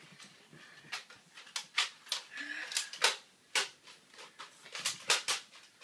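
Irregular sharp clicks and knocks, about nine scattered through a few seconds, from Nerf blasters being primed and fired and foam darts striking things.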